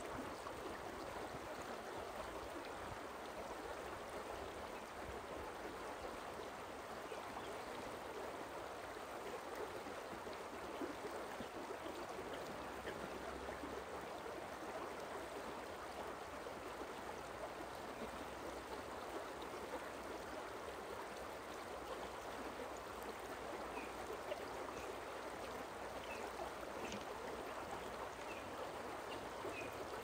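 Forest stream running over rocks: a steady, even rush of flowing water. A few faint, short high chirps come through near the end.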